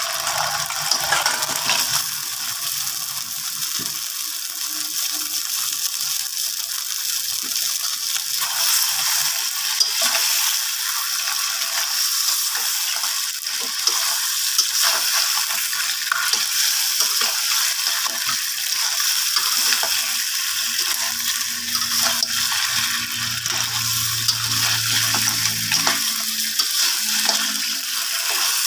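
Crabs sizzling in sauce in a hot wok, with a metal spatula scraping and knocking against the wok as they are stirred and turned.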